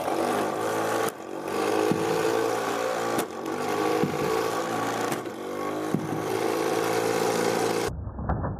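Electric motor of a flywheel shooter spinning the flywheel at a constant speed of about 1100 RPM, a steady whine with a few sharp clicks as the adjustable hood is handled. The whine cuts off abruptly near the end, leaving a duller, quieter rumble.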